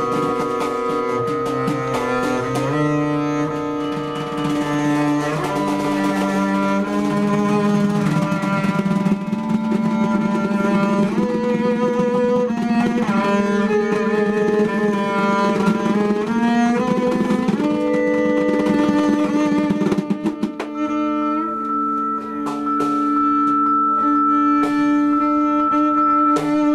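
Free acoustic improvisation: a double bass bowed in long held notes, a Yamaha vibraphone struck with mallets, and hand drum strokes. About twenty seconds in the low, busy layer drops away, leaving a few long ringing tones.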